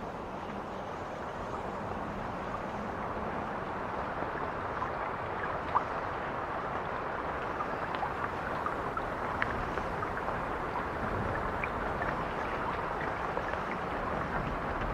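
Steady rushing water-like noise, sprinkled with small pops and drips, slowly growing louder at first, with one sharper pop about six seconds in.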